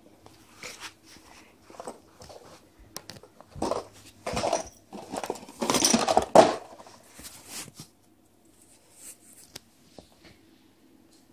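A small cardboard box knocking and scraping on wooden floorboards as a cat scuffles about with it, mixed with rustling from the camera being handled. The sounds are scattered at first, then come as a cluster of loud knocks and rustles from about four to seven and a half seconds in, then fade to a few faint taps.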